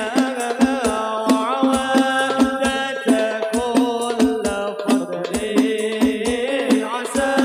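Hadroh ensemble performing sholawat: a sung melody that bends and wavers over hand-struck frame drums in a quick, regular pattern, with deep bass-drum thumps underneath.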